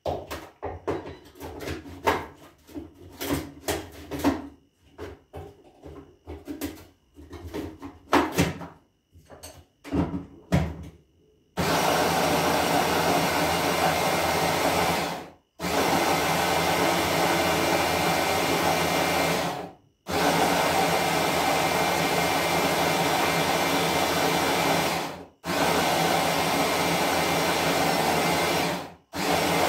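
Clatter and knocks of a plastic chopper bowl being filled with sugar and fitted together. Then a pink electric hand blender with its chopper attachment grinds granulated sugar into powdered sugar. The motor runs in bursts of about four to five seconds with brief pauses between them, so that it does not overheat.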